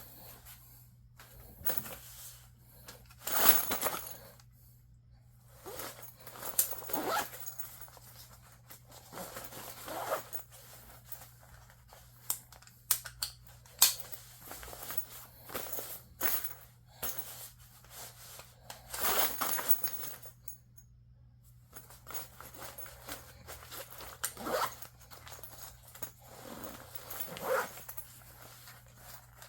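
Handling of a fabric sling bag: scattered rustles, scrapes and a few sharp clicks, over a steady low hum.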